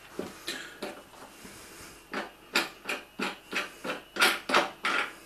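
Hands working the lid of a homemade automated pressure cooker to loosen its knurled thumbscrews: a few isolated short scrapes, then from about two seconds in a quick run of short scrapes and knocks, about three a second.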